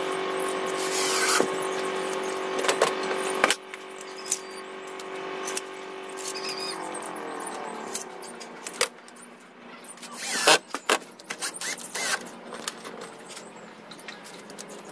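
Cordless drill running steadily as it drives into the wooden shelf frame, loud for about three and a half seconds, then quieter and slowing down. After that come scattered knocks and clicks of the drill and boards being handled, with a motor tone starting again near the end.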